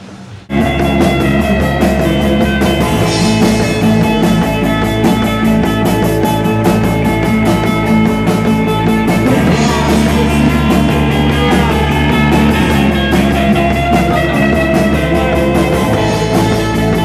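Live rock band with electric guitars playing loudly to a steady beat, cutting in suddenly about half a second in.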